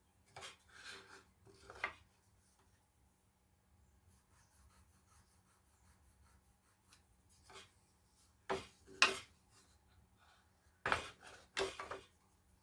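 Short bouts of hand scraping or rubbing on a workpiece, a few quick strokes at a time in four groups with pauses between.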